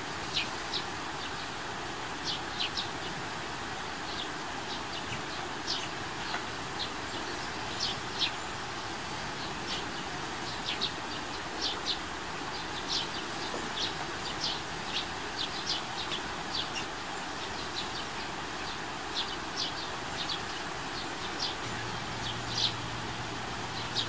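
Steady rush of running river water, with many short, high bird chirps scattered throughout. A low steady hum comes in near the end.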